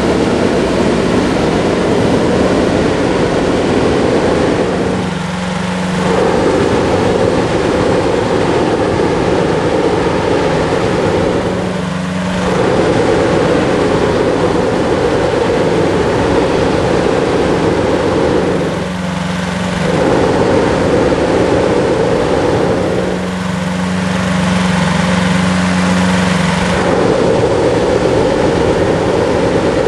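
Thermal airship's pusher-propeller engine running at idle on the ground: a steady hum under a louder rushing noise that drops away briefly four times, leaving the engine's hum standing out.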